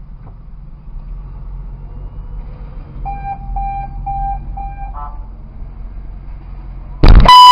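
A car horn starts blaring loudly about seven seconds in, after a low, steady idling hum. About three seconds in, four short electronic beeps sound in quick succession, about two a second.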